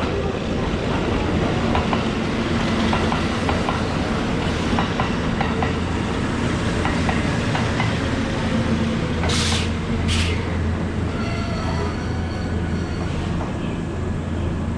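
Kintetsu electric train running along the platform, a steady rumble with wheels clacking over rail joints. About nine and ten seconds in come two short bursts of air hiss, followed by a brief high whine.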